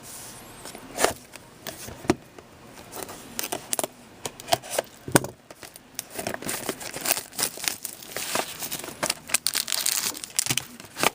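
Plastic wrapping and cardboard packaging crinkling and tearing in irregular crackles and snaps as a box of hockey trading cards is unwrapped and opened by hand.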